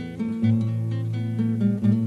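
Instrumental music of acoustic guitar playing strummed chords, with no singing. The chord changes about half a second in, bringing in a strong low bass note.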